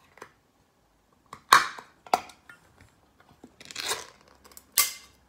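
Ring-pull lid of a tall metal can of peanuts being prised up and peeled open: a few sharp tearing cracks, the loudest about a second and a half in, with a longer rip near four seconds.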